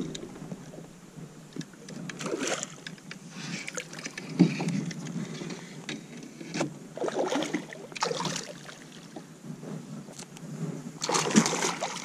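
Bursts of splashing from a hooked bass thrashing at the water's surface beside a kayak, several times over, the loudest near the end.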